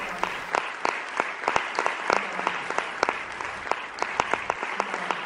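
Audience applauding, with many sharp individual claps standing out over the general clapping.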